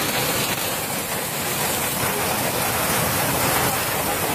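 Hailstorm: hailstones and heavy rain pelting down on a street, a steady, dense hiss.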